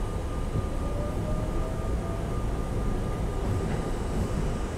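Inside an R32 subway car under way: a steady low rumble of the car on the rails, with a faint whine rising slowly in pitch in the first half as the train picks up speed.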